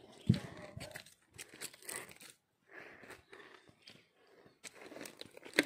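Footsteps on a stone-paved dirt path: irregular scuffs and light knocks, the sharpest about a third of a second in and another just before the end.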